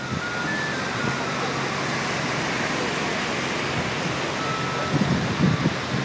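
Steady rushing outdoor noise, with a faint tune of high single notes stepping in pitch over it near the start and again later on.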